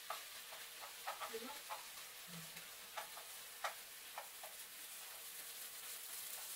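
Sliced pork sizzling as it stir-fries in a wok, with a wooden spoon knocking and scraping against the pan now and then as it is stirred.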